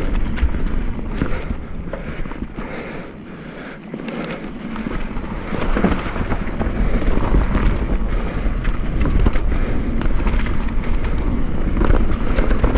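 Mountain bike rolling fast down a dirt trail: tyre roar over the ground with frequent rattles and knocks from the bike on rough terrain, and wind buffeting the microphone. It eases off briefly about three seconds in, then picks up again.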